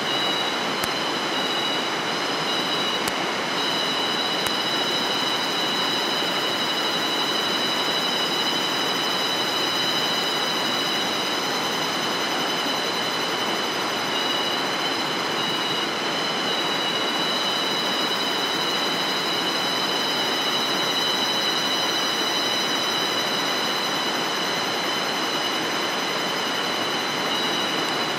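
Steady chorus of tropical insects: two continuous high-pitched tones over an even hiss, unchanging throughout.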